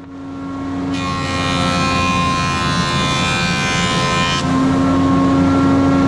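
Woodworking jointer running, its cutterhead coming up to speed and then planing a rough-sawn board fed across it, with a dense cutting hiss for about three and a half seconds.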